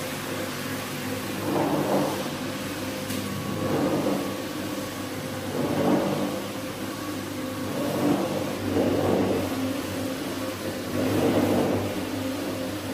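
A motor-driven rug-cleaning machine running with a steady hum, its sound swelling and easing in repeated strokes about every two seconds as it is worked back and forth over the rug.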